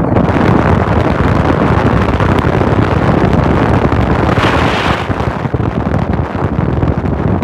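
Wind buffeting a phone microphone held out of a moving car's window, over the car's road noise, with a brief swell of louder hiss about four and a half seconds in.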